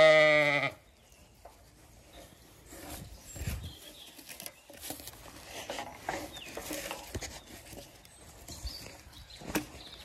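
Zwartbles ewe bleating loudly, one call that cuts off under a second in. Then faint rustling and small clicks of baling twine being worked loose from a wooden gatepost on a wire fence.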